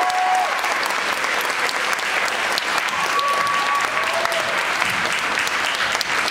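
Audience applauding steadily, with a couple of high cheers, one near the start and one about three seconds in.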